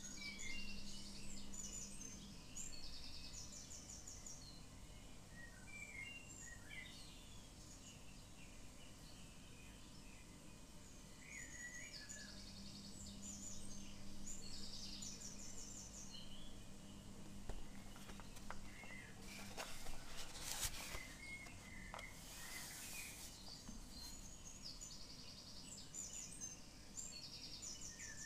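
Small songbirds outside chirping and giving short, fast trills again and again. About two-thirds of the way through there is a brief rustle of sketchbook paper as a page is turned.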